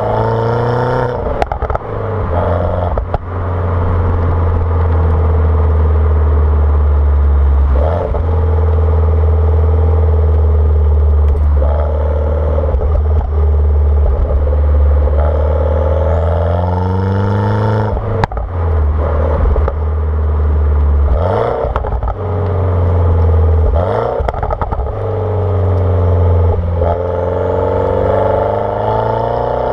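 Mini Cooper S's turbocharged 1.6-litre N14 four-cylinder, with a JCW exhaust and no catalytic converter, under way. Long steady running, then several rising revs that cut off, with sharp pops and crackles from the exhaust as the revs drop.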